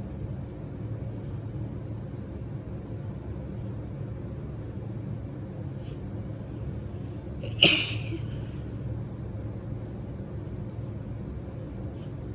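A woman sneezes once, sharply and briefly, a little past halfway, over a steady low background hum.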